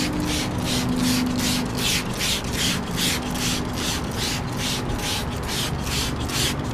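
Trigger spray bottle of tire and rubber cleaner being pumped rapidly, a quick hiss of spray with each pull, about three pulls a second, soaking a tire sidewall.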